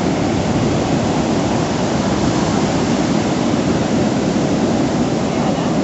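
Heavy hurricane-swell surf breaking, a loud, steady rushing noise of waves without letup.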